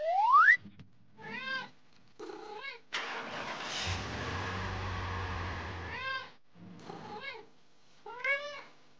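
A cat meowing repeatedly in short calls that rise and fall in pitch. A quick rising whistle-like tone comes at the very start, and a steady rushing noise with a low hum runs for about three seconds in the middle.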